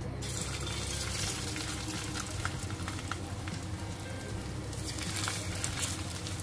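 Flour-coated salmon fillets shallow-frying in a little hot oil in a wok: a dense sizzle with scattered crackles that starts abruptly as the first fillet goes into the oil, and carries on as a second fillet is added.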